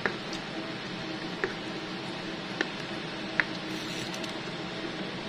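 Spatula stirring a thick, simmering chicken pastel sauce in a frying pan, a soft squelching over a steady bubbling hiss. About four light clicks of the spatula against the pan.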